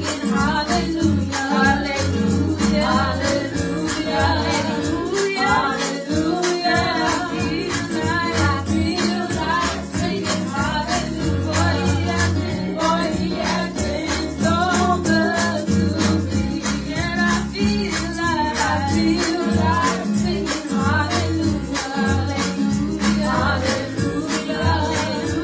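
Two women singing a gospel praise song into microphones over backing music, with a bass line and a steady high percussion beat.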